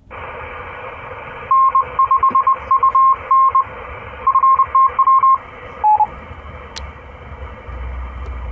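Repeater transmission heard through a mobile two-way radio's speaker: a hissy open carrier, over which a string of short and long beeps at one steady pitch sends the repeater's Morse code identification. About six seconds in comes a single slightly lower beep, and the hiss carries on after it.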